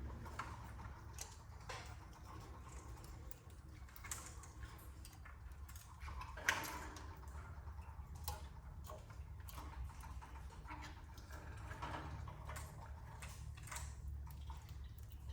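Canaries moving about in their nest cage, making scattered faint ticks and clicks, with one sharper click about six and a half seconds in, over a steady low hum.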